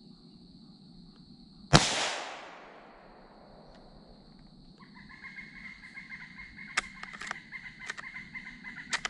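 A single gunshot from a scoped hunting gun about two seconds in: one sharp crack with a long echoing tail that fades over about a second, over a steady high insect buzz. From about five seconds a steady high tone carries on, broken by a few sharp clicks.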